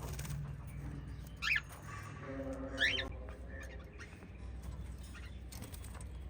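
Small pet parrots giving two sharp, sweeping chirps about a second and a half apart, over a steady low hum.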